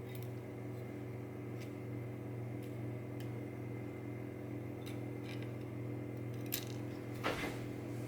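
Light metallic clicks and clinks from small lock pins and tools being handled during a lock disassembly, with a sharper click about six and a half seconds in and a louder clink or scrape near the end. A steady low hum runs underneath.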